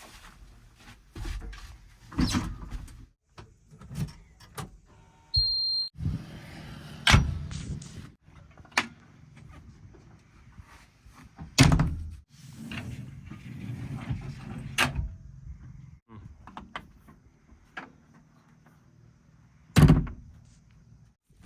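Backhoe loader at work: irregular heavy metal clanks and thuds, with four loud knocks spread through and a short high squeal about five seconds in.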